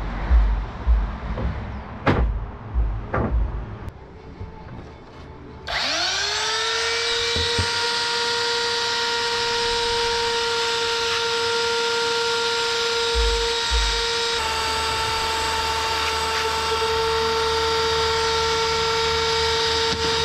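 A few knocks of tools being set down on the bench, then an electric belt sander starts about six seconds in, its motor spinning up quickly to a steady high whine that runs on without a break.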